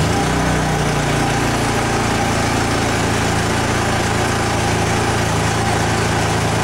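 Honda EU30is inverter generator's single-cylinder engine running steadily under full electrical load with its eco throttle on. Its note shifts and settles at a steady, higher speed just after the start as the engine takes up the load.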